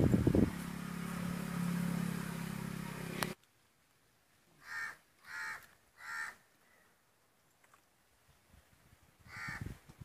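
A steady low hum that cuts off abruptly about three seconds in. Then a crow caws three times in quick succession, and once more near the end.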